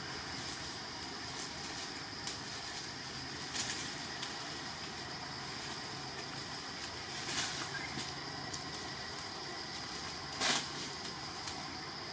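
A thin plastic bag crinkling in three short rustles as a macaque pulls at it, over a steady background hiss.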